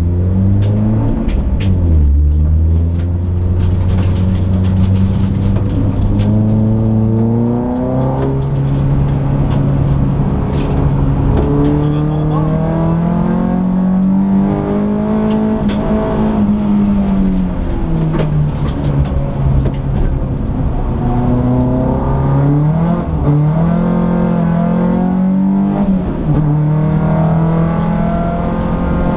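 Peugeot 206 S16's 2.0-litre four-cylinder engine heard from inside the cabin while being driven on track: the engine note climbs under acceleration, steps at gear changes and sinks when slowing for corners, rising and falling several times.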